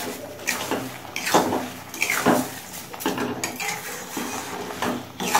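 Metal spatula scraping and knocking against a metal kadai while stirring sugar into a thick fruit chutney mixture, an irregular scrape or clink about once a second.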